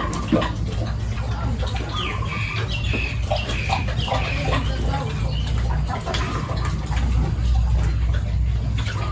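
Farmyard animal calls, a scatter of short high calls, over a steady low rumble.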